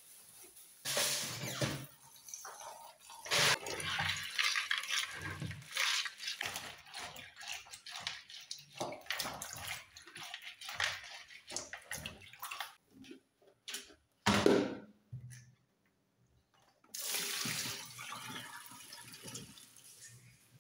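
Water sloshing and splashing as hands rub soaked beans in a plastic bowl in a stainless steel sink, loosening their skins, with one sharp knock a little past halfway. Near the end, water runs steadily as it is poured off through a plastic strainer, which catches the bean skins.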